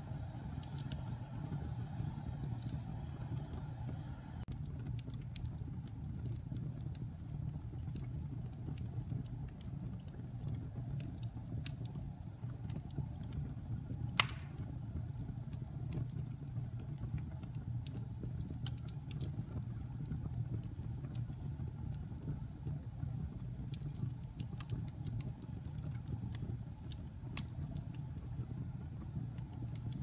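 Wood logs burning in a fireplace: a steady low rumble of the flames with scattered crackles, and one sharp pop about halfway through.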